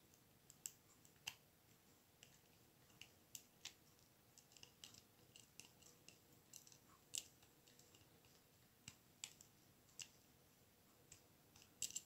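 Faint, irregular metallic clicks and ticks of a snake rake being worked in and out across the pins of a four-pin laminated padlock, a tension wrench holding light turning pressure on the plug.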